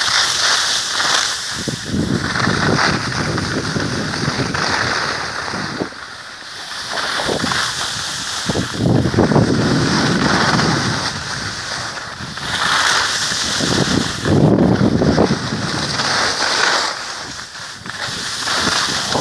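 Skis swishing and scraping over packed, tracked snow in a run of turns, swelling and fading every few seconds, with wind on the microphone.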